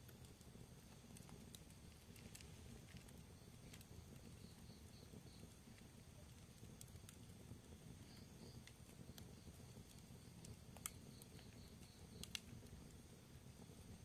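Wood fire burning in a fireplace, heard faintly: a low steady rumble with sparse soft crackles, and two louder pops a second or so apart near the end.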